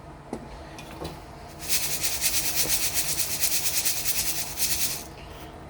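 Sapphire wash gravel being worked in a sieve: a rapid hissing rattle that starts about two seconds in and lasts about three seconds, after two faint clicks.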